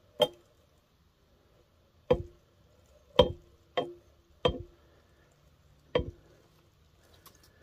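Six sharp metallic clinks at uneven intervals, each with a short ring: the connecting rods on the rebuilt crankshaft knocking against the sealed aluminium crankcase of a Polaris 700 two-stroke engine as the crank assembly is moved by hand.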